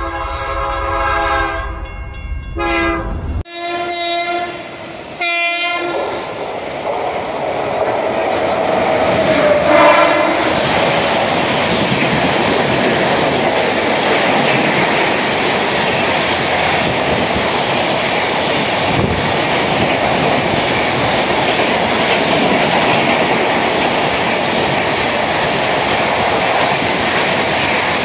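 Several train horn blasts in the first six seconds, then a mail express train with red coaches running through the station at speed: the steady noise of wheels on rail and coaches passing, with clickety-clack and one more short horn about ten seconds in.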